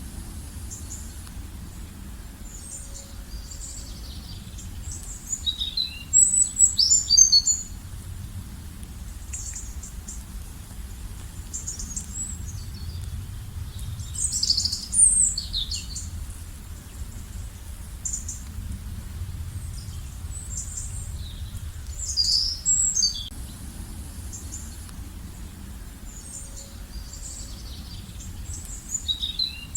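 Songbirds singing at a lakeside: short, high, quickly sliding phrases that come again about every seven or eight seconds, with quieter chirps between, over a steady low rumble of background noise.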